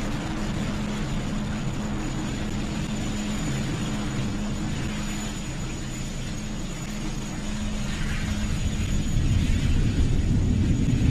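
Falcon 9 first stage's nine Merlin 1D engines during ascent: a continuous low rumble that grows louder and rougher about nine seconds in.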